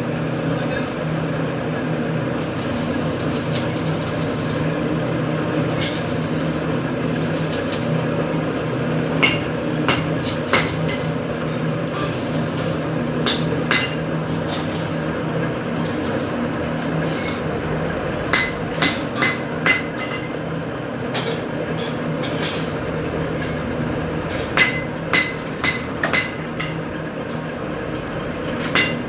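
Sharp metal clinks with a short ring, coming in small bunches of two to four, as hand tools strike and scrape a stack of black metal pulleys. Under them is a steady mechanical hum of workshop machinery.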